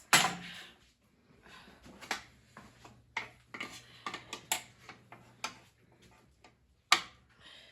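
Irregular metallic clicks and knocks of hand tools working on a motorcycle's rear fender bolts, with a sharper clank near the start and another about seven seconds in.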